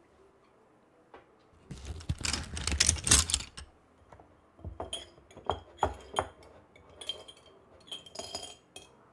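Small hard objects clinking and knocking as they are handled: a dense clatter about two seconds in that lasts about two seconds, then a string of separate light clinks.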